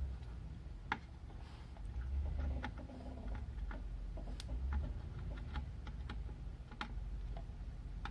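Scattered small clicks and taps of tools and parts being handled on a circuit board, irregular and about a dozen in all, over a low steady hum.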